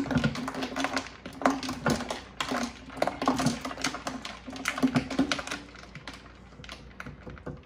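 Ice cubes being dropped in by hand, a rapid run of clinks and clatters that thins out about six seconds in.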